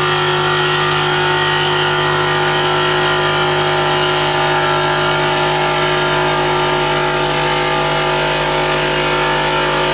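CNC stone polishing machine running steadily: an even motor hum with several fixed tones over a steady hiss, unchanging in level.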